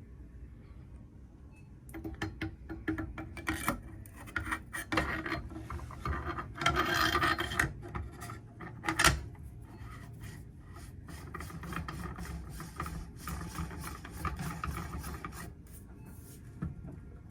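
Suppressor being threaded onto a rifle's muzzle by hand: irregular metal-on-metal scraping and rubbing with small clicks, a longer stretch of scraping about seven seconds in, and a sharp knock about nine seconds in.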